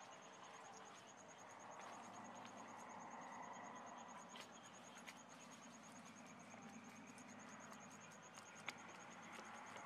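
Faint, steady insect trill: one high note pulsing rapidly and evenly, with a few soft clicks in the quiet background.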